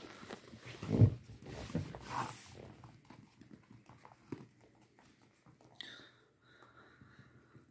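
Puppies playing on a laminate floor: paws scrabbling and tapping, with a thump about a second in. Near the end a puppy gives a thin, high whine lasting about a second.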